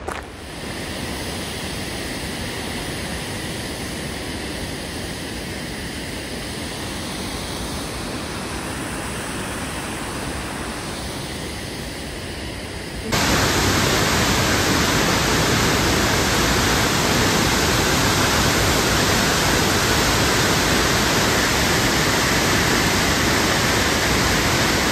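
Steady rush of a waterfall. About halfway through it steps up abruptly to a louder, brighter rush.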